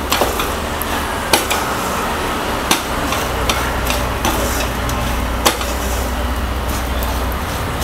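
A spatula stirring and scraping a thick, sticky mix of millet, dates and almonds around a stainless steel pan, with a few sharp knocks of the spatula against the pan, over a steady low hum. The mix is being worked over low heat to break up the lumps of dates.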